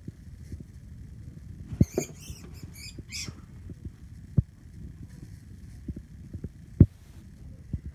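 A live feeder mouse squeaking in a quick run of high chirps about two seconds in, as a corn snake seizes and coils around it. A low rumble of handling noise and a few sharp knocks run underneath.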